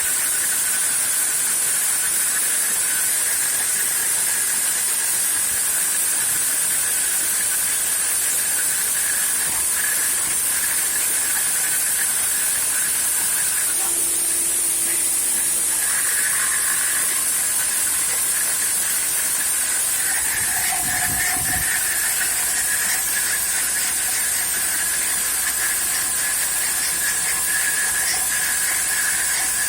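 CNC router spindle running with a three-flute aluminium-specific end mill taking a 2 mm deep cut: a steady high whine over hiss, with the cutting tone growing stronger and rougher partway through.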